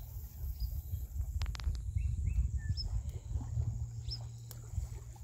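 Steady low rumble of wind on the microphone, with short bird chirps now and then and a couple of sharp clicks about a second and a half in.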